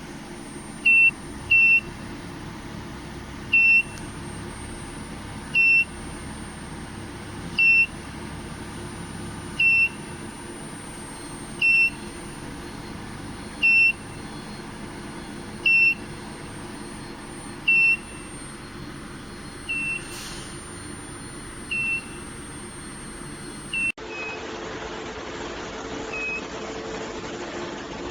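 A short, high electronic beep repeating about every two seconds over a steady machine hum and a thin high whine. After a cut near the end the hum changes and the beeps are fainter.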